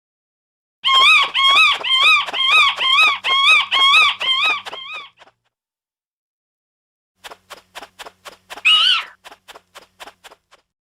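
Bat squeaks: a run of about ten quick, high chirps, each rising then falling in pitch, about two and a half a second for four seconds. After a pause comes a row of short clicks with one louder squeak among them.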